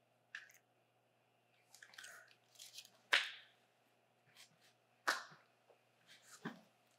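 Low room tone with about half a dozen short, soft breathy rustles spread through it, the loudest about three seconds in.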